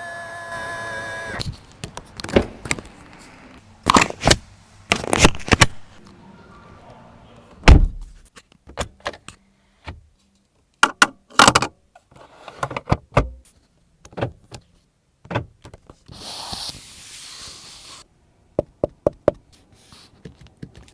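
A BMW 330Li's doors, latches and cabin controls being worked: a string of separate clicks, knocks and thuds, with a heavy thump about eight seconds in as the loudest. A short steady electronic tone sounds at the start, and a hiss runs for about a second and a half near the end.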